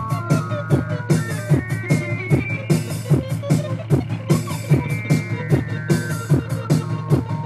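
Machine-played electro-punk music: an even drum beat of about four hits a second over a steady low bass tone, with a stepped melody line that climbs for the first few seconds and then steps back down.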